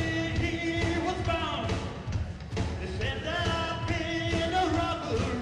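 Live rock band playing, with a male singer holding long sung notes in two phrases over a steady drum and bass beat.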